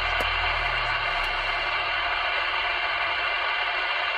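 CB radio loudspeaker giving a steady, loud hiss with faint steady tones in it, with no voice getting through: interference (QRM) coming in over the 27 MHz FM channel.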